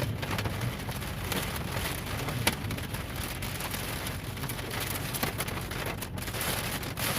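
Steady rain falling, with many single drops ticking sharply and irregularly on a nearby surface over a steady low hum.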